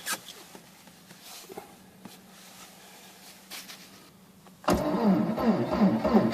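A few faint clicks over quiet, then about three-quarters of the way in an engine abruptly cranks and starts, loud, with rapid even pulses: a diesel cold start in deep frost.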